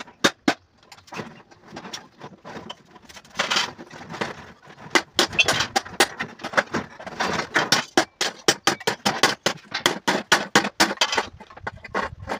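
Household items being handled and sorted beside a plastic rice sack: irregular clatter, clicks and knocks with bursts of rustling, busiest in the second half.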